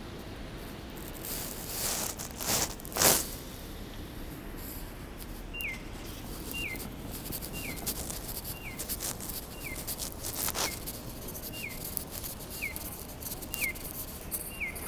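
Pedestrian crossing's audible walk signal: a short, falling, bird-like electronic chirp repeating evenly about once a second, starting about five and a half seconds in, which signals that pedestrians may cross. Before it there is steady street noise with a brief rush of noise around three seconds in, the loudest moment.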